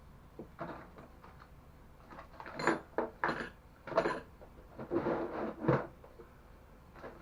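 Metal engine-mount parts and hand tools handled on a bench: a string of irregular clanks, knocks and short scrapes, busiest in the middle.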